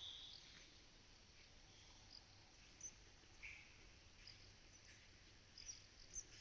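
Very quiet pasture ambience with scattered brief high chirps of small birds.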